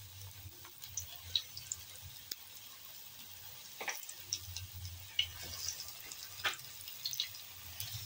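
Cornflour-coated chicken pieces shallow-frying in hot oil in a pan: scattered sizzling pops and crackles, with a few louder crackles as more pieces go in.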